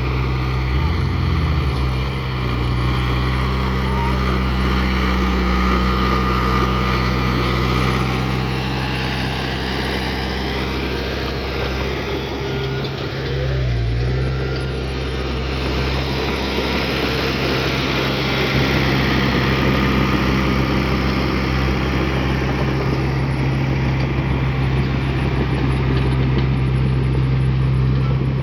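Heavy diesel engine of an earthmoving machine running steadily under load, its pitch dipping briefly about a second in and again around halfway.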